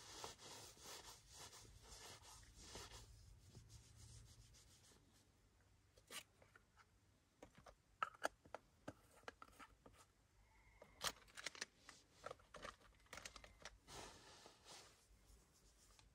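Faint rustling of clothing and sleeping bag, then from about six seconds in a scatter of small sharp clicks and taps as small objects are handled on a wooden bed tray.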